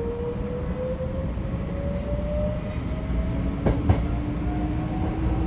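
Hankyu electric train running, heard from inside: a steady low rumble of wheels on rail with a motor whine rising slowly in pitch as the train picks up speed, and a single sharp knock a little before four seconds in.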